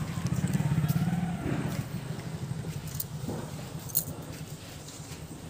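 A vehicle engine running with a low, pulsing sound that fades away over the first two seconds. A sharp click comes about four seconds in.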